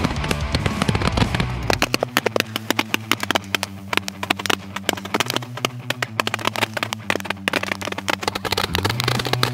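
A bundle of Roman candles firing all at once: a dense, rapid crackle of sharp pops, many shots a second, with steady low tones underneath.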